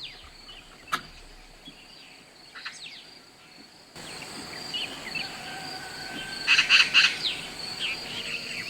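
Outdoor birdsong: short downward-sweeping chirps over a steady high-pitched insect drone. A louder quick run of chirps comes about six and a half seconds in.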